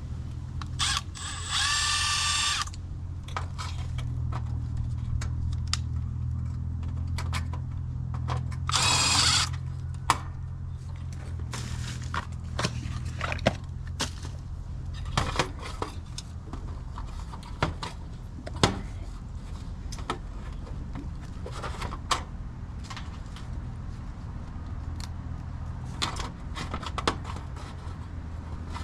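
Cordless power drill spinning screws in two short whirring bursts, about a second in and again near nine seconds. Scattered clicks and taps of tools and parts being handled follow, over a low steady hum.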